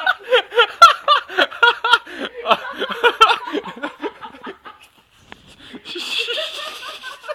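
Men laughing hard in quick repeated bursts, tailing off about four and a half seconds in. Near the end comes a stretch of hiss-like noise lasting a second or two.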